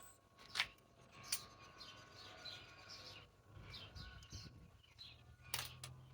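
Faint bird chirps, with a few sharp clicks: one about half a second in, another a second later, and one near the end.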